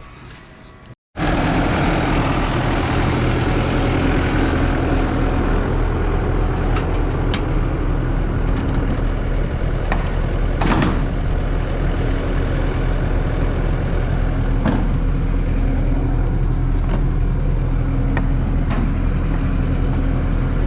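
A vehicle engine running steadily at a constant speed, cutting in suddenly about a second in, with a few light knocks over it.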